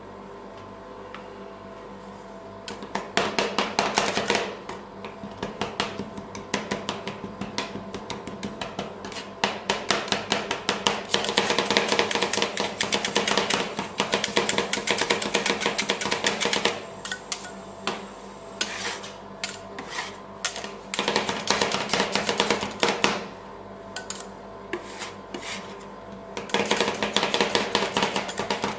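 Two metal spatulas rapidly chopping avocado on the frozen steel plate of a rolled ice cream machine: a fast clatter of metal striking metal, starting about two and a half seconds in and pausing briefly a few times. A steady hum runs underneath.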